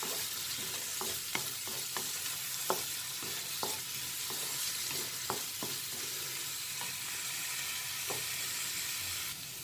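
Chopped capsicum, carrot and onion sizzling in hot oil in a metal kadhai while being stir-fried with a flat spatula. The spatula scrapes and clinks against the pan at irregular moments over a steady frying hiss that eases just before the end.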